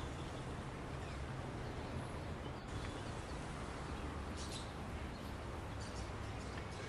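Steady outdoor background noise of distant street traffic, with a few faint, short bird chirps around the middle.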